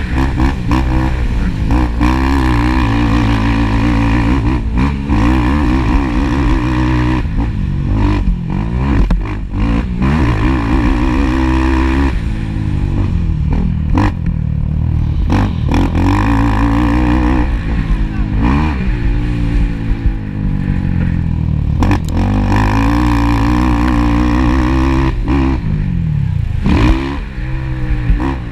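ATV engine under hard throttle on a motocross track, its pitch climbing and dropping over and over as the rider accelerates, shifts and backs off.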